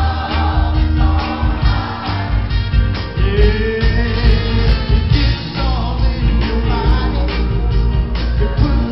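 Live band amplified through a PA: a male lead singer and a group of backing vocalists singing over drums and bass with a steady beat.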